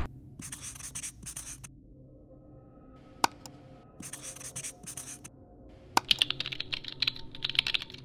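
Sound effects of a marker scribbling on paper in short strokes, a single click about three seconds in, then rapid computer keyboard typing for the last two seconds.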